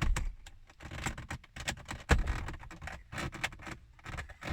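Irregular clicks, taps and scrapes of fingers working at the plastic centre dash fascia trim, prying at its clip-held bottom edge; the sharpest click comes about two seconds in.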